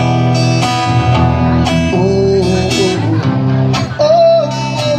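Sertanejo song in an instrumental passage between sung lines: a plucked guitar melody over a steady bass line, with one bent note about four seconds in.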